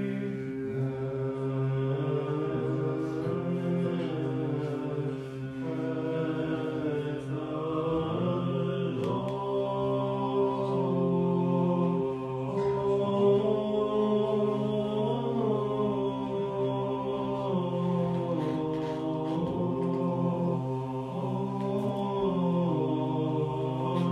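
Orthodox liturgical chanting: voices sing a slow melody over one low note held steadily underneath as a drone, in the manner of Byzantine chant with an ison.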